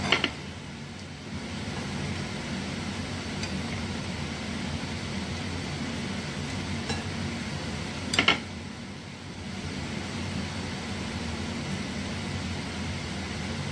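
Two sharp clinks of a serving utensil striking a ceramic dish while steamed pork is lifted onto a plate, one at the very start and one about eight seconds in, over a steady kitchen hum from a running fan or steamer.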